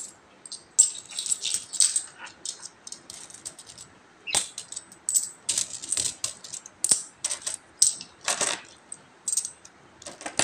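Peso coins clinking against each other as they are picked out of a heap and counted by hand: irregular metallic clicks and short jingles, with one longer jingle about three-quarters of the way through.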